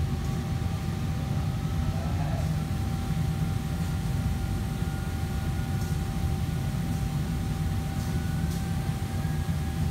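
Steady low rumble of running machinery, with a constant whining tone above it.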